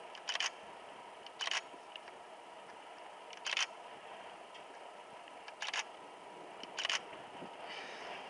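Single-lens reflex camera shutter firing five times at uneven intervals as still shots are taken, each a short, sharp click, over a steady hiss.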